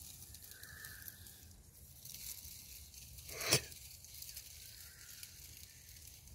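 A single brief crunching rustle about halfway through, over faint quiet background.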